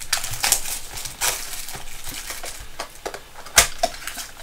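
Trading-card packaging being handled and torn open: crinkling plastic wrapper and foil packs with irregular crackles and small clicks, and one sharp snap about three and a half seconds in.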